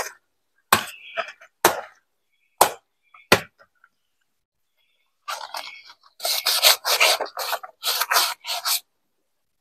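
A blade cutting into a banana plant's fibrous trunk: five sharp chopping blows about a second apart, then, after a pause, a quick run of about eight rasping strokes through the stem.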